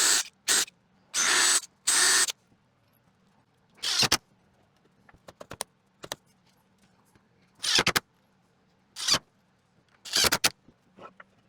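A power fastening tool firing or driving in about eight short bursts, irregularly spaced, as wooden frame pieces are attached, with light clicks and knocks of handling between them.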